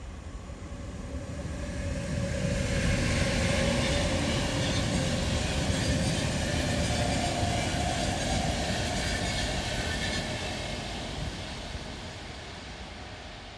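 Trains passing through: a PKP Intercity passenger train and a container freight train, wheels running on the rails. The rumble builds over the first few seconds, holds, then fades away toward the end.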